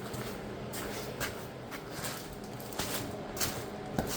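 Plastic sheeting being handled and spread out: scattered rustles and light knocks, about one every half second to second, over a steady low hum.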